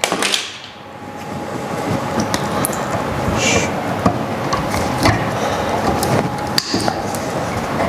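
Pliers and stiff copper wire being worked as white neutral wires are spliced and twisted together: irregular clicks and knocks over steady scraping and rustling.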